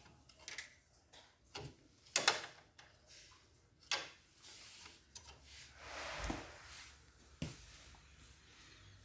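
Sharp clicks and knocks from copier drive parts and screws being handled and fitted, with a short scraping rustle about six seconds in.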